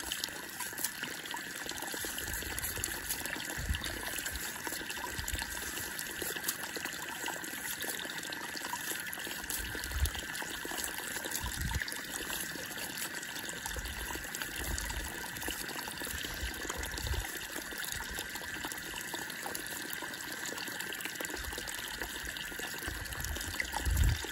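Stream water pouring steadily out of the end of a pipe and splashing onto wet ground, with a few low bumps now and then.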